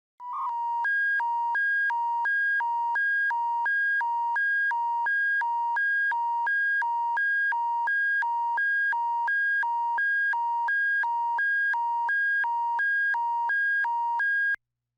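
Electronic emergency-alert attention tone: two steady pitches, one near 1 kHz and a higher one, alternating quickly in a hi-lo pattern about twice a second. It stops abruptly near the end, just before a warning bulletin is read.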